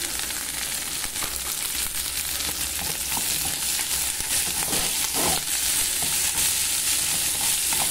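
Diced onion and sliced linguiça sausage sizzling in a pot, with crackling, while a wooden spoon stirs them.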